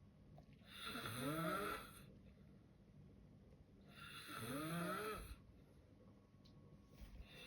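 A man snoring in his sleep: two long snores about three seconds apart, each rising in pitch, and a third beginning near the end.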